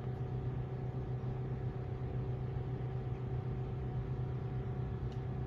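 A steady machine hum with a few held tones and no change in pitch, typical of aircraft or ground-equipment noise heard from inside an airport terminal.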